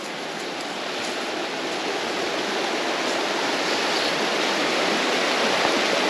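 Shallow rocky stream rushing over riffles, a steady hiss of running water that grows gradually louder.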